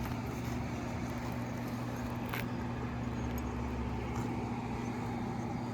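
Steady low machine hum with a faint noisy background, and a single faint tap about two and a half seconds in.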